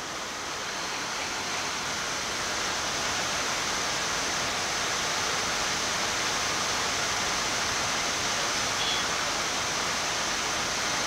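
Steady rushing airflow noise in the flight deck of a Boeing 787-9 climbing after takeoff. It grows slowly louder over the first few seconds, then holds even.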